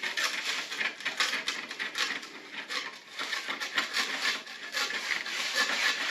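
Gritty scraping and rubbing of mortar grout being worked over the joints of a terracotta tile floor, in quick irregular strokes.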